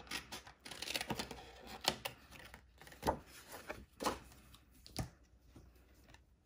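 Scissors snipping through green cardstock in several separate cuts, with paper rustling and light clicks as it is handled.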